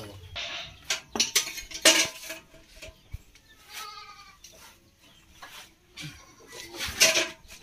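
A steel bucket and the bicycle it hangs on clank a few times as the bicycle is loaded, loudest about two seconds in and again near the end. A goat bleats once in the middle.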